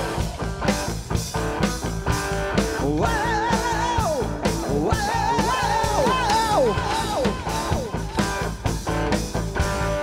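Live rock band playing, with a drum kit keeping a steady beat under electric guitar. A male lead vocal wavers with vibrato and slides down in pitch in the middle stretch.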